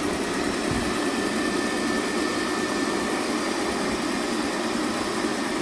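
Xiaomi Mijia Mop-G1 robot vacuum running: a steady whir of its suction fan and motors at a constant level, with a faint high whine.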